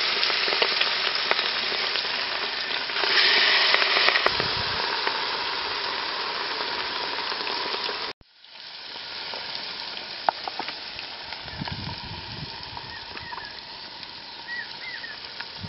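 Masala-marinated fish pieces deep-frying in hot oil in an aluminium pot, a loud, steady sizzle that swells about three seconds in. It cuts off abruptly about eight seconds in and comes back quieter.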